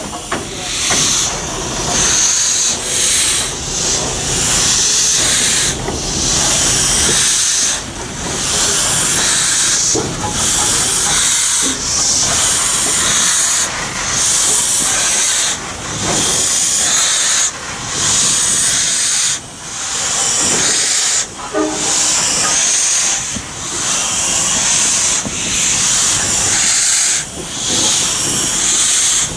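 Norfolk and Western steam locomotive hissing loudly as it vents steam, in long surges broken by short gaps about every two seconds.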